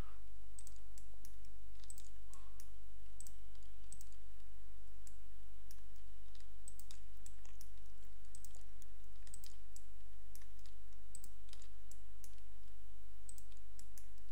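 Irregular computer mouse button clicks, with a few keyboard key presses (Shift and Ctrl), over a steady low electrical hum.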